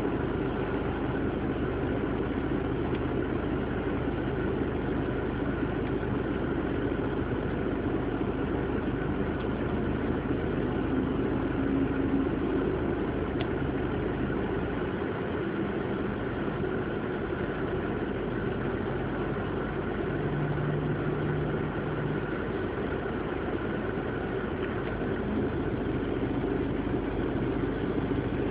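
Vehicle engines idling: a steady hum with no sudden bangs.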